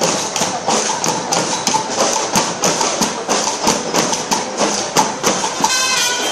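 Marching band percussion playing a steady beat of drum and cymbal hits. Near the end the brass comes in with held notes over the drums.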